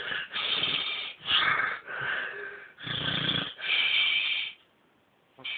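Snoring: a quick run of loud, rasping breaths in and out, about six in four and a half seconds. A short pause follows, and the next breath starts near the end.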